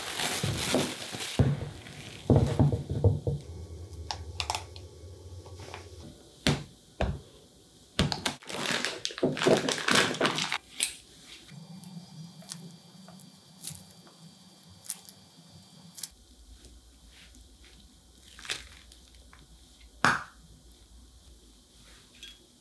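Plastic cling wrap crinkling as it is peeled off a bowl, then more plastic crinkling about eight seconds in as a disposable piping bag is handled. Scattered soft taps and a few sharp clicks follow.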